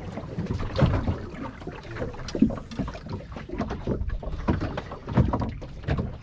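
Small open fibreglass boat rocking on the sea, with water slapping and knocking irregularly against the hull.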